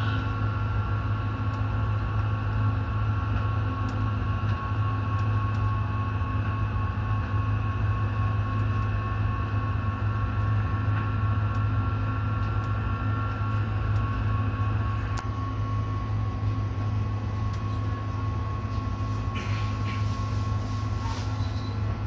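Stadler Citylink Class 399 tram-train running at steady speed on mainline track, heard from inside the driver's cab. A constant low rumble carries a steady high whine, with a few faint clicks from the wheels and track.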